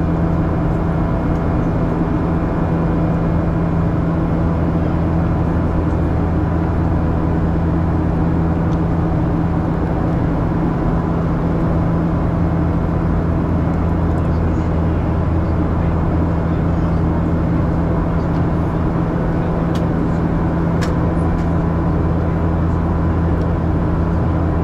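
Steady cabin drone of a Boeing 737-800 with its CFM56-7B engines at constant thrust: a deep hum with a few steady tones above it, unchanging throughout.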